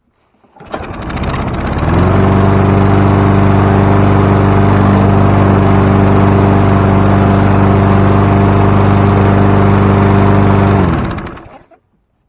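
Toro self-propelled push mower's small four-stroke engine starting easily without starter fluid. It catches under a second in and settles into a steady run, then is shut off near the end, its pitch dropping as it winds down to a stop.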